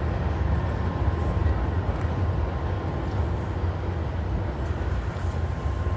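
Steady low rumble of outdoor city background noise, with a faint steady high tone running through it.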